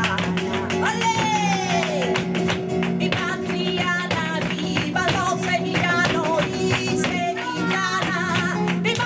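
Live sevillanas: a woman sings over flamenco guitar, her voice sliding down in a long falling phrase about a second in. Sharp percussive clicks keep time throughout.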